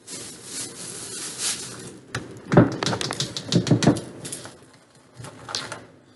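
Rustling, then a quick run of clicks and taps from brownie batter being stirred in a plastic bowl.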